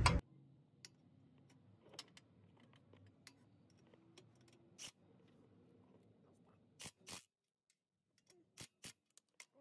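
A few faint, sharp clicks and light metal taps, scattered and spaced by a second or more, from a cordless impact wrench and its socket being handled against the exhaust bolts; the wrench does not run.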